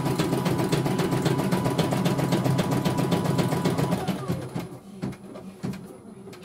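CNY E900 computerised embroidery machine stitching, its needle clattering at a rapid, even rhythm over a steady hum. About four seconds in it winds down and stops, leaving a few separate clicks, as at the end of an embroidery run.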